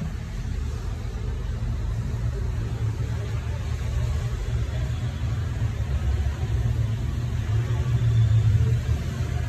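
A steady low rumble that grows somewhat louder near the end.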